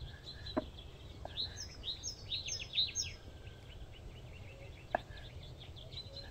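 A kitchen knife tapping against a wooden cutting board a few times as meat is cut, with small songbirds chirping; a quick run of high, falling chirps comes between about one and three seconds in.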